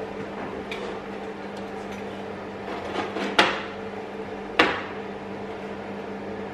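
A metal utensil clinks twice against a frying pan, about a second apart near the middle, over a steady low hum.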